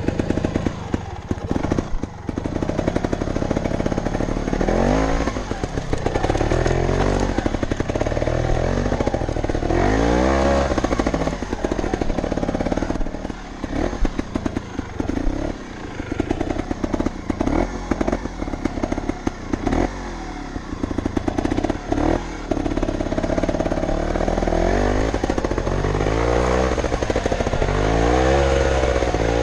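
Montesa Cota 315R trials motorcycle's two-stroke single-cylinder engine being ridden, its revs rising and falling again and again as the throttle is blipped, with rattling from the bike.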